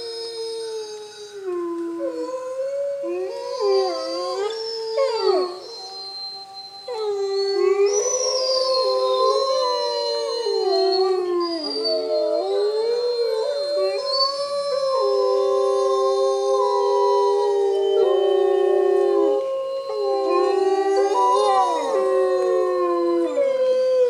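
A wolf pack chorus howling: several wolves howl at once in long, overlapping calls that slide up and down in pitch. The chorus is thinner for the first few seconds and grows fuller and louder from about seven seconds in.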